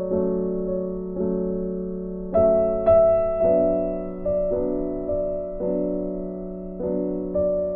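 Slow background piano music: soft chords struck one after another, each fading before the next.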